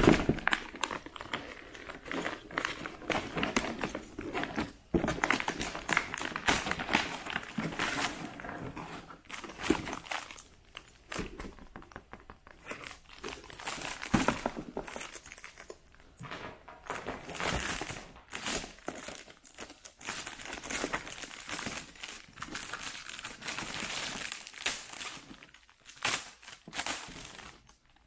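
Plastic packaging crinkling and rustling as a tablet case is slid out of its clear plastic sleeve over a cardboard box, with irregular light clicks and knocks from handling.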